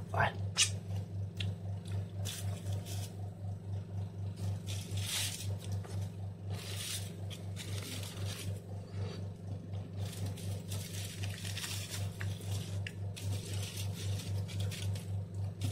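Aluminium foil crinkling in short, irregular bursts as hands open a foil packet of baked potato and onion, with a couple of sharper crackles just after the start. Under it runs a steady low hum that pulses a few times a second.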